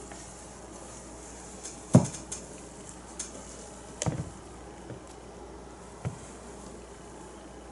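A few light knocks and taps from handling painting things on a tabletop: a sharp knock about two seconds in, softer ones near four and six seconds, and a couple of small ticks between.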